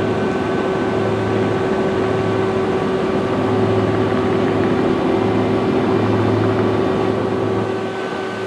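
A steady, loud machine drone with several constant humming tones and a faint whine above them. It eases off slightly near the end.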